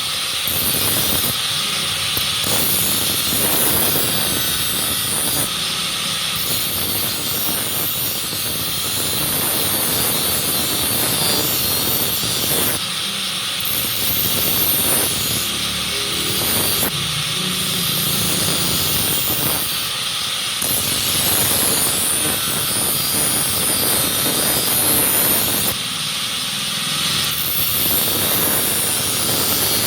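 Steady loud grinding hiss of a knife being sharpened on a powered grinder. The lower part of the sound drops away briefly every few seconds, while the high hiss carries on.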